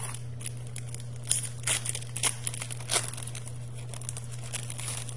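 Foil trading-card pack wrapper being crinkled and torn open by hand, a run of irregular crackles bunched between about one and three seconds in, lighter ones after, over a steady low hum.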